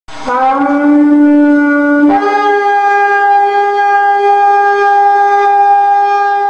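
A shofar blown in one long blast. It starts on a low note that bends slightly upward, then about two seconds in leaps to a higher note that is held steadily.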